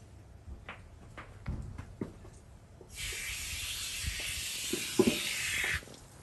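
A steady hiss lasting about three seconds that starts and stops abruptly, after a few light knocks.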